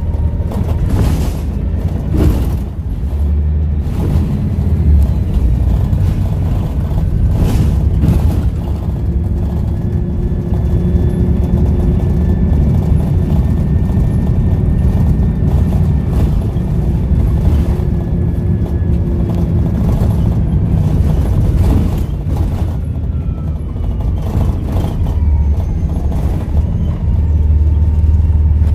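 Volvo B7RLE bus's diesel engine running under way with a deep, steady rumble. A faint turbo whistle holds for about ten seconds midway, and a few sharp knocks and rattles come from the bus.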